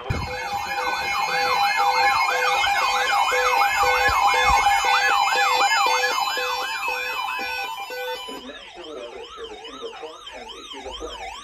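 Electronic siren sweeping rapidly up and down, about three times a second, over a steady tone with a pulsing lower beep. About eight seconds in it changes to a slower, quieter up-and-down sweep.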